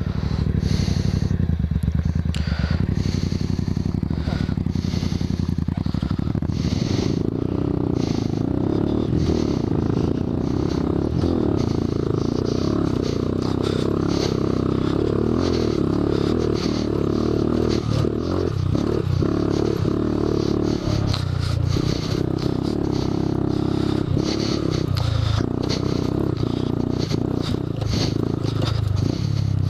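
Honda Grom's 125 cc single-cylinder engine running under way, its note rising and easing as the throttle opens and closes, with wind buffeting and jolts from the rough trail.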